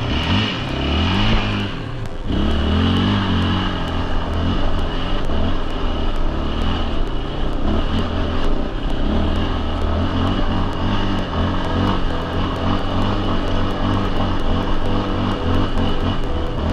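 Quad (ATV) engine working hard up a steep, rocky dirt hill climb, its pitch rising and falling with the throttle and a brief drop about two seconds in.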